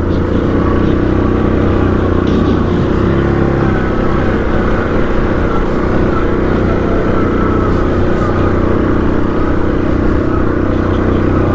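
ATV engine running at a steady pace while riding a bumpy trail of whoop-de-doos.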